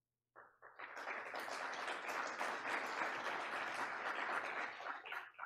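Audience applauding in a hall, the many claps starting about half a second in and cutting off abruptly near the end.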